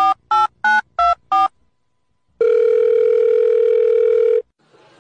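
Touch-tone telephone keypad dialing: about five quick two-tone beeps, then a pause and one steady ringing tone about two seconds long.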